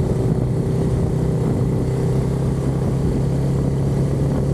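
A vehicle engine running at a steady speed, a constant low hum and rumble with no revving.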